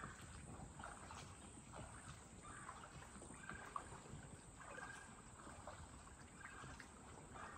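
Near silence: faint, irregular water lapping and gurgling in the hollows of an undercut limestone bank as a kayak drifts past.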